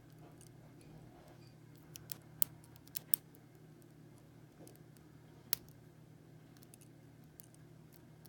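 Tiny hook pick and tensioner clicking and ticking in a small pin-tumbler lock while picking: a quick cluster of sharp metallic ticks about two to three seconds in and a single tick about five and a half seconds in, over a low steady hum.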